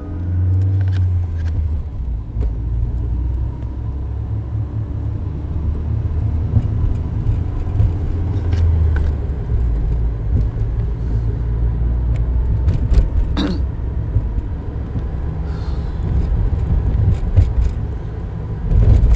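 A car driving, with a steady low engine and road rumble heard from inside the cabin.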